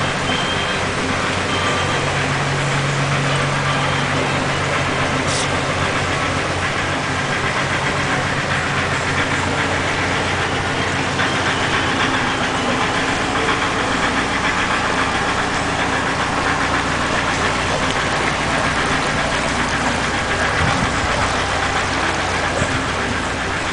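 Narrowboat's diesel engine ticking over at low speed with a steady, even beat.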